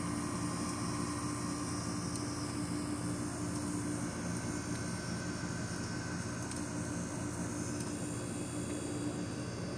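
Steady mechanical drone with a low, even hum that neither rises nor falls.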